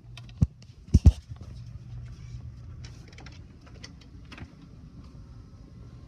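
Handling noise from a handheld phone being picked up and carried: a sharp knock, then a louder quick double knock about a second in. After that comes a low steady hum with scattered faint clicks.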